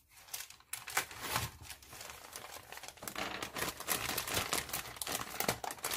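Thin clear plastic bag around a plastic model kit's sprues being pulled open and handled: continuous crinkling, a little louder in the second half.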